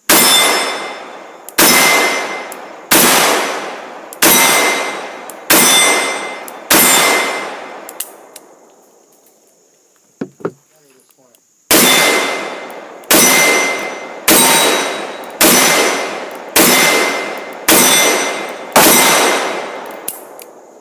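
Six shots from a 1968 Colt Python 4-inch .357 Magnum revolver, about one and a third seconds apart, each followed by the ring of the struck steel plate. After a gap of several seconds with a few light clicks, seven shots at the same pace from a Smith & Wesson Performance Center 586 L-Comp, a compensated 3-inch .357 Magnum revolver, each again ringing the plate.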